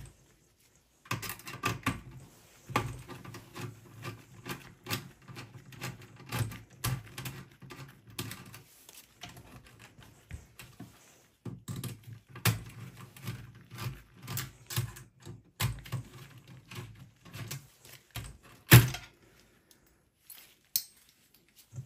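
Irregular clicks and knocks as a desktop PC's CPU cooler is worked loose and lifted off the motherboard inside a steel chassis, with one sharp knock near the end.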